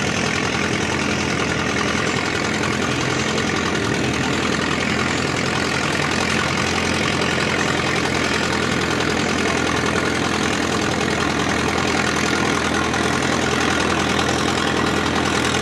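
Antique farm tractor engine idling steadily.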